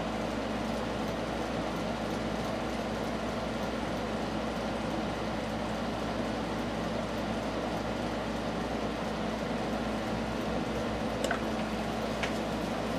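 Steady hum and hiss of room background noise, with two faint ticks near the end.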